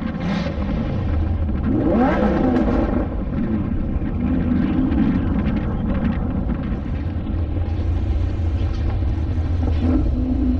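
Car engines in slow cruise traffic, running at low speed over a steady low rumble, with one engine revving up about two seconds in.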